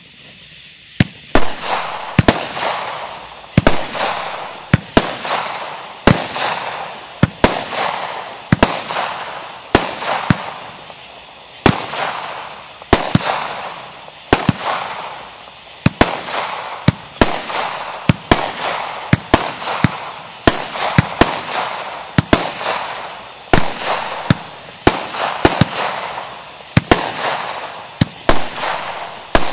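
Multi-shot aerial fireworks cake (the 'Firedrake') firing shot after shot, about one every second and a bit. Each shot is a sharp bang followed by a fizzing, crackling tail that fades before the next.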